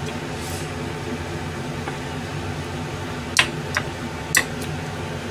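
A metal ladle clinking against a frying pan four times, a little past halfway, as simmering vegetables are stirred, over a steady low hum.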